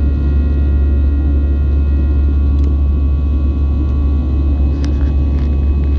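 Jet airliner cabin noise beside a wing-mounted turbofan engine: a loud, steady rumble with a constant whine of engine tones. A couple of faint clicks come about five seconds in.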